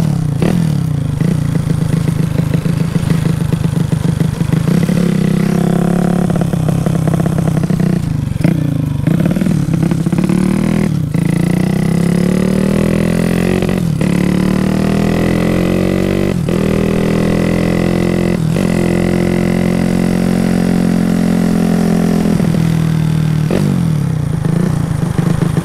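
Carbureted motorcycle engine running, its pitch slowly rising and falling as it revs up and down, with several short sharp knocks.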